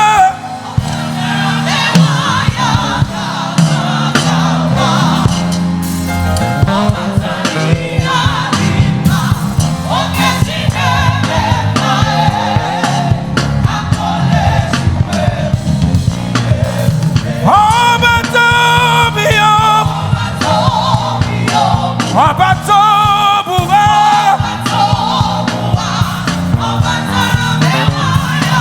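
Live gospel praise music: a choir singing over a band, with a steady beat and bass running underneath.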